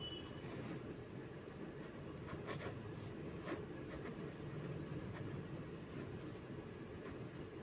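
Marker pen writing on a white surface: faint scratches and taps of the tip, word by word, over a steady low background noise.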